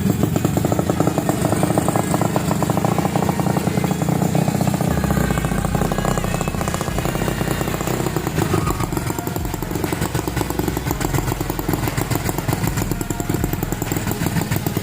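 Bored-up 200 cc Yamaha Mio single-cylinder scooter engine running steadily, a rapid, even beat of firing pulses.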